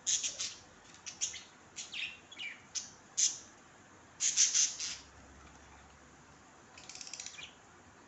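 Budgerigars chirping in short, high, separate calls, with a loud cluster of chatter about four seconds in and a quick rattling warble near the end.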